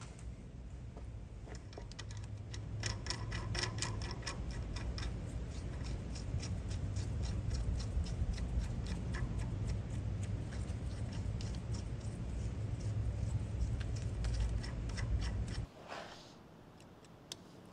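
Castle nut being turned by hand on the freshly cut threads of a steel shoulder bolt to test the fit: a quick run of light metallic clicks, several a second, over a steady low machine hum. The hum cuts off abruptly near the end.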